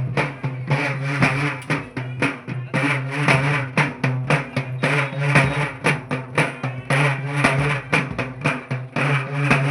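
Festival drums played in a fast, steady rhythm, with a sustained low tone held beneath the beat.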